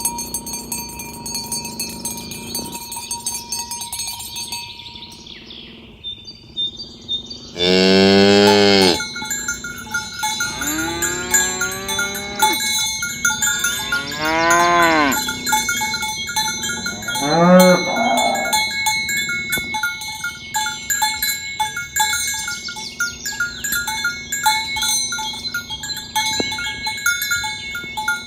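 Cows mooing four times. The loudest and longest moo comes about eight seconds in, and shorter moos rise and fall in pitch over the next ten seconds. Bells on the herd clank and jingle steadily throughout.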